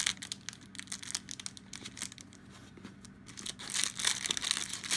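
Knife packaging being handled and unwrapped: irregular crinkling and rustling with small tearing crackles, getting busier and louder about four seconds in.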